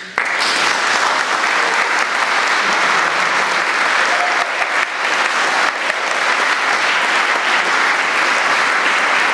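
Audience applauding at the end of a live piece, breaking out suddenly as the music stops and then keeping up steadily.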